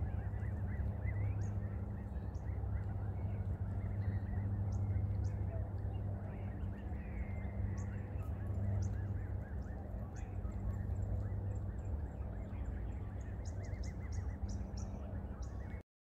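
Black swan cygnets and their parent grazing on grass, with soft waterfowl calls and scattered light ticks over a steady low hum.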